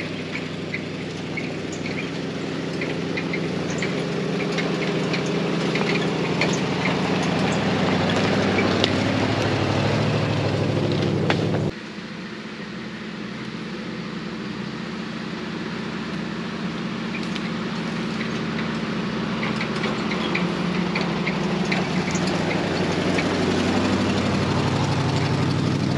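Dodge W300 dump truck's engine running as the truck drives slowly along a dirt trail, growing louder as it comes closer. The sound drops suddenly about halfway through and builds up again as the truck approaches a second time, with scattered faint clicks over it.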